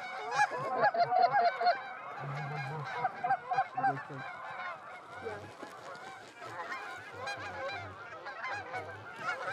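A flock of Canada geese honking overhead, many calls overlapping, loudest and thickest in the first two seconds.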